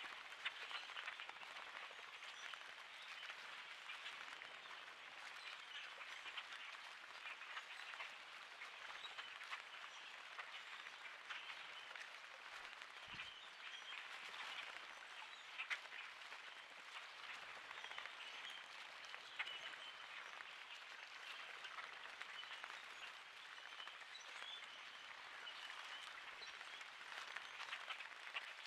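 A large flock of common grackles at water, their many short calls and chatter overlapping into a steady, dense crackling din.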